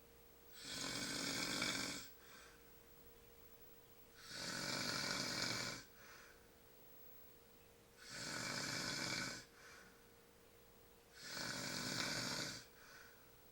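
A sleeping man snoring: four long rasping snores about three and a half seconds apart, each followed by a short, fainter breath.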